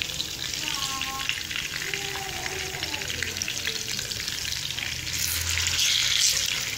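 Oil sizzling and crackling as masala-coated fish pieces shallow-fry in a non-stick pan. The sizzle swells louder about five seconds in as a piece is turned over with a fork.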